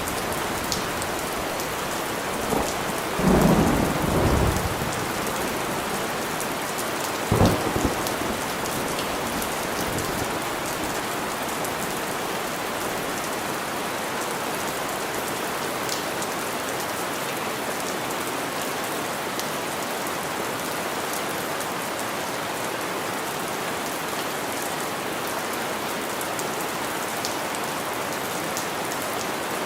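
Steady rain falling with a thunderstorm. A roll of thunder rumbles in the first few seconds, loudest about three to four seconds in. A sharp thunderclap comes about seven seconds in, then the rain keeps on steadily.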